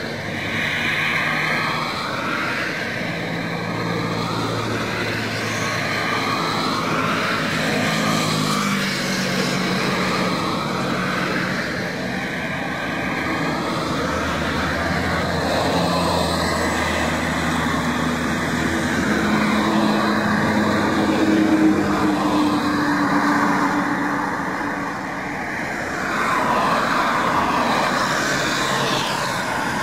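Highway traffic: motor vehicle engines running, their pitch rising and falling, over steady road and wind noise.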